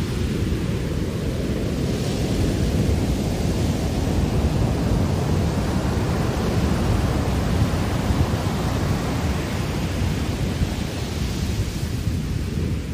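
Heavy ocean surf: large waves breaking and foaming whitewater washing up a sandy beach, a steady deep roar of noise that swells through the middle and eases a little near the end.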